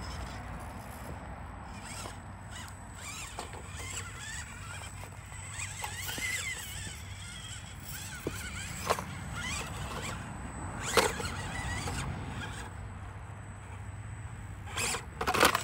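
Small electric RC rock crawler running slowly over rocks, its motor and gears whining faintly, the whine rising and falling with the throttle. A few sharp clicks come from the truck knocking against the stones, the loudest about eleven seconds in.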